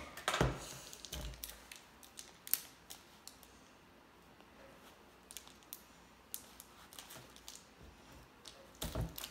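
A small plastic wrapper crinkling and clicking in scattered light ticks as fingers pick and tug at it, trying to peel it open, with a slightly louder rustle near the end.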